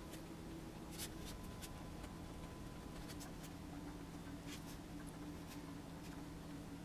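Faint, sparse scratches and taps of fingers and fingernails working modelling clay, over a low steady hum.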